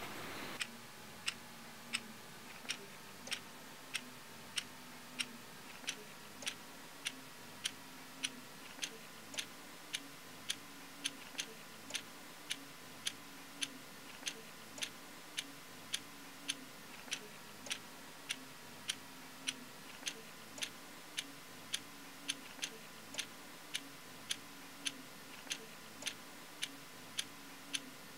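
Clock ticking steadily, about three ticks every two seconds, over a faint steady hum.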